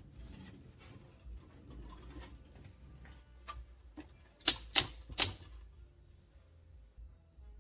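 Faint scattered ticking, then three sharp clicks in quick succession about halfway through, roughly a third of a second apart.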